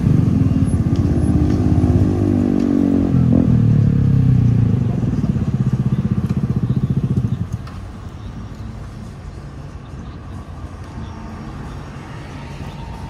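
Custom Yamaha Cygnus X scooter engine, a 125 cc single, running loudly with its note rising and falling. About seven and a half seconds in it drops suddenly to a quieter, steady engine sound.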